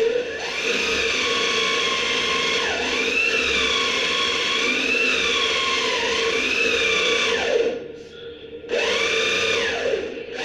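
Electric drill running into a wooden table base: one long run of about seven seconds, its motor whine sagging and recovering as it bogs under load, then a short second burst of about a second near the end.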